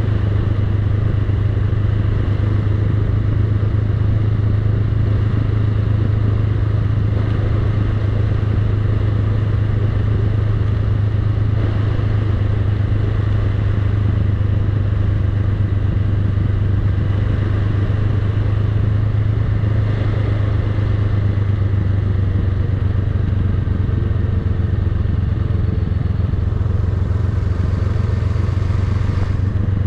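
Honda Rebel 500's parallel-twin engine running at a steady pitch while riding, under a steady rush of wind and road noise.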